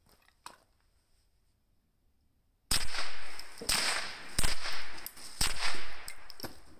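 Ruger PC Carbine, a 9mm pistol-calibre carbine fired unsuppressed: a string of single shots about a second apart, beginning nearly three seconds in, each with a short echo.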